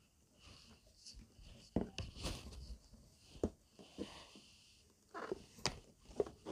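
Irregular short clicks and knocks, about seven of them, with faint rustling between.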